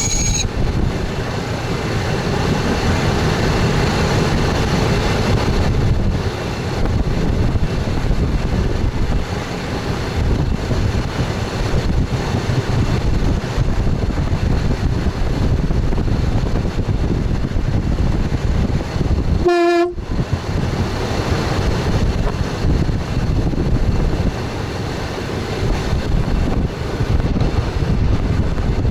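Express train running on the line, heard from the front cab: a steady rumble of the wheels on the track and the running gear. There is a brief high tone at the very start, and about twenty seconds in a short pitched tone sounds during a momentary break in the rumble.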